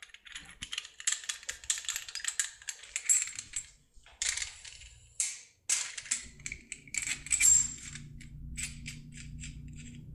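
Small metal parts of a lock-cylinder puller clinking and rattling as they are handled and fitted together, in quick irregular clicks. A low steady hum joins about six seconds in.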